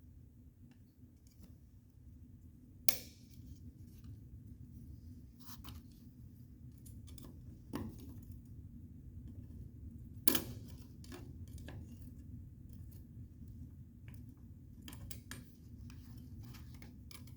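Hand tools clicking and scraping against the metal of a vent window frame while a stubborn old ground-off rivet body is worked out of it. There are scattered light taps and two sharper metallic clacks, about three seconds in and about ten seconds in, over a steady low hum.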